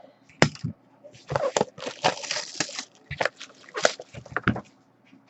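Shrink-wrap crinkling and tearing as a sealed box of trading cards is unwrapped: a run of sharp crackles and short rustling bursts with brief pauses between them.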